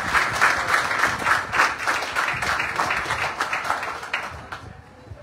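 Audience applauding with many overlapping hand claps, dying away about four and a half seconds in.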